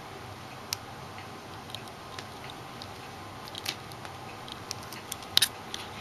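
Scattered light clicks and ticks at irregular intervals over a steady hiss, with a louder quick cluster of clicks about five and a half seconds in.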